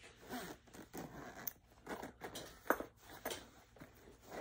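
Zipper of a hard-shell carrying case being pulled open in short, uneven strokes, with handling scratches of the case and one sharp click a little after halfway.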